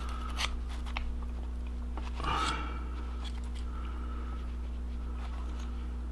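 Brass chamber brush on a T-handle rod scrubbing through a chamber of a .22 revolver cylinder: faint scratchy scraping with a few light clicks, and a short louder rasp about two seconds in, over a low steady hum.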